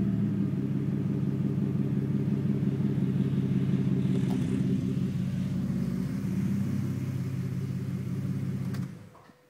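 2009 Ford FG Falcon XR6's naturally aspirated 4.0-litre inline-six idling steadily through Pacemaker extractors, a high-flow cat and a 3-inch Manta Y-split cat-back exhaust. Near the end it is switched off and the note dies away quickly.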